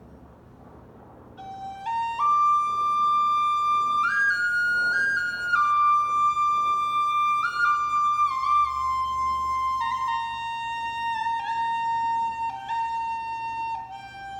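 A slow solo melody on a single flute-like wind instrument, starting about a second and a half in. It climbs in a few steps at first, then moves through long held notes that step gradually downward.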